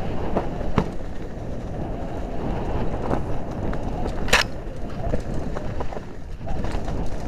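An off-road bike's wheels rolling fast over a rough, leaf-covered dirt trail, with a steady rattle and rumble and scattered knocks from the bumps, one sharp knock about four seconds in.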